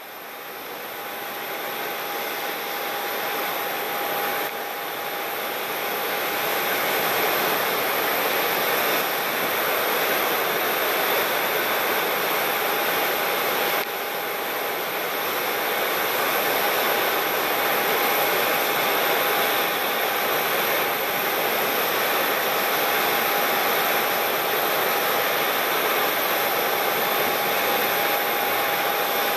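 ATR 72-600 turboprop airliner's Pratt & Whitney PW127 engines and propellers running as it lands and rolls out: a steady rushing noise with a high whine, growing louder over the first several seconds.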